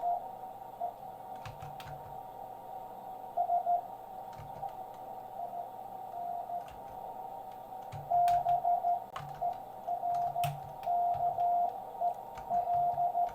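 Morse code from a ham radio transceiver: a steady tone of about 700 Hz keyed on and off in dots and dashes over the hiss of a narrow CW filter. For the first several seconds there is mostly hiss with only a short burst of code, and the keying picks up again about eight seconds in. A few soft low knocks come through now and then.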